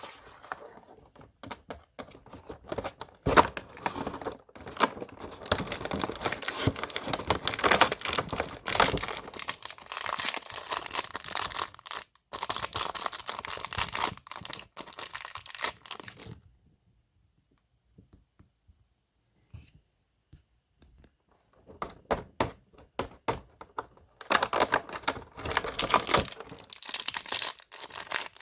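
Disney Doorables packaging being torn open and crinkled by hand, with a rustling, crackling sound that stops for several seconds midway and then starts again.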